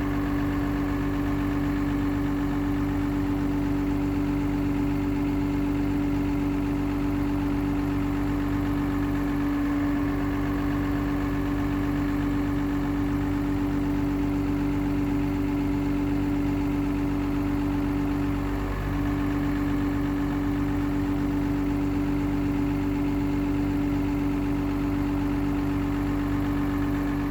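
Komatsu PC220LC-7 hydraulic excavator's six-cylinder diesel engine running steadily at idle, with a strong steady hum over it. The hum wavers briefly twice, about ten and nineteen seconds in.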